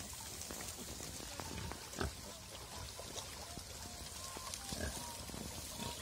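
A big litter of piglets and their sows grunting and squeaking, many small calls overlapping, with one louder short knock about two seconds in.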